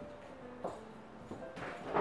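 Soft background music with short held notes, and faint knocks and rustling that build near the end as the baking dish is carried.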